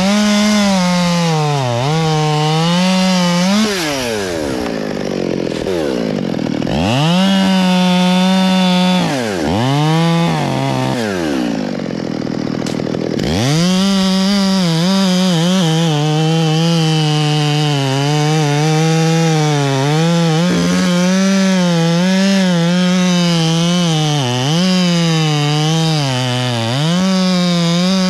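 Two-stroke top-handle chainsaw cutting through black cottonwood at full throttle. In the first half the revs drop and climb back several times as the throttle is let off and squeezed again. In the second half it holds steady in the cut.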